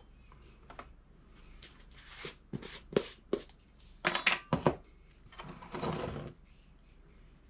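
Light clicks and knocks of shotshell hulls and reloading gear being handled on a bench, then a short rustle near the end.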